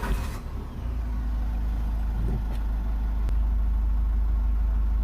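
Ford Kuga engine just started by push button: a brief flare as it catches right at the start, then running at a steady idle with a deep, even rumble.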